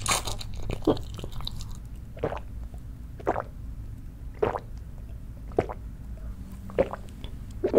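Close-miked mouth sounds: chewing a mouthful of food, then gulping cola from a glass, with short wet swallows about once a second.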